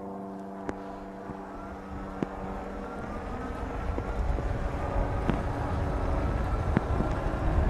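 Wind on the microphone and wide fat tyres rumbling on pavement, growing steadily louder as an electric fat-tyre mountain bike gathers speed. A steady hum fades out in the first few seconds.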